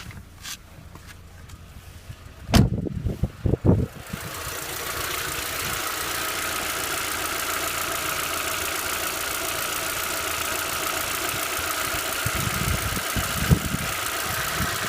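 VW Passat B5 engine, hot, with several loud thumps about two and a half seconds in. It then runs steadily at idle with the ticking knock of hot hydraulic lifters.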